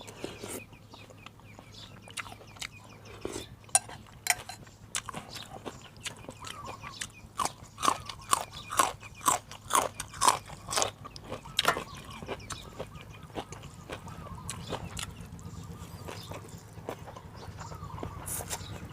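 Close-up chewing and eating sounds: a run of short smacking clicks, busiest around the middle, over a low steady hum.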